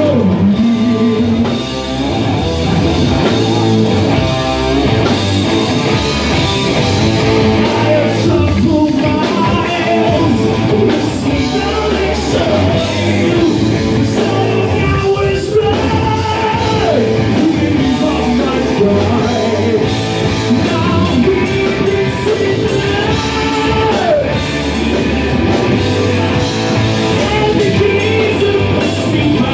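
Live rock band playing loudly: a male singer over electric guitar, bass guitar and a drum kit.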